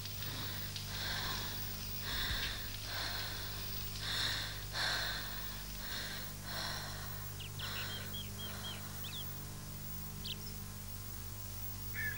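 A fever-stricken girl's heavy, rapid breathing, a breath about every second, over a steady low hum. A few faint high chirps come in past the middle.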